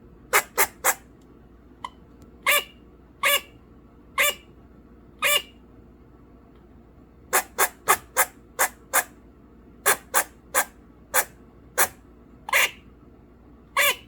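Eastern grey squirrel barking: about twenty short, sharp alarm calls in irregular groups, with a quick run of them in the middle. It is the squirrel's warning call at crows flying past.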